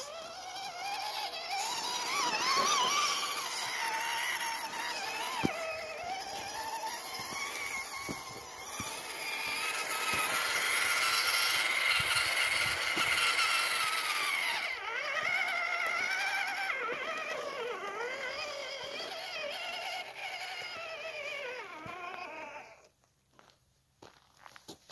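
Scale RC crawler's electric motor and gearbox whining, the pitch rising and falling with the throttle as it crawls over rock, with an occasional knock. The whine cuts off suddenly near the end.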